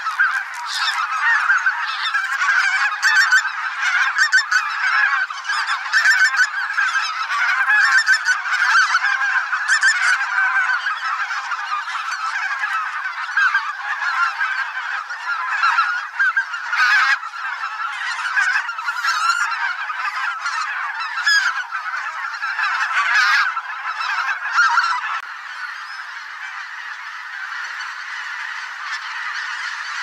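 A huge mixed flock of wild geese (greater white-fronted, bean, barnacle and pink-footed geese) honking in a dense, continuous chorus of overlapping calls. The chorus softens a little about 25 seconds in.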